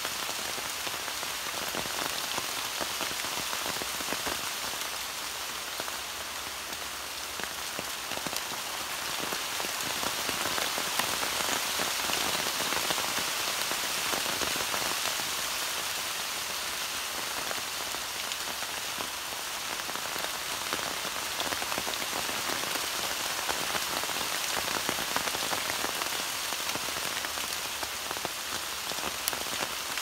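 Steady rain falling on broad, wet leaves: a dense hiss with many individual drop hits, swelling a little louder around the middle.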